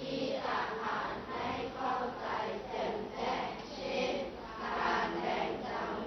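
A class of students reading a Thai text aloud together in unison, in a steady group chant.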